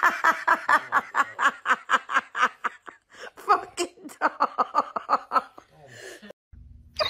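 A person laughing hard in a long run of quick, rhythmic ha-ha pulses, with a short break about three seconds in; the laughter dies away near the end.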